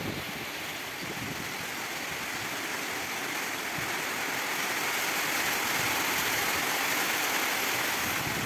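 Heavy rain pouring down, a steady, even hiss that holds level throughout.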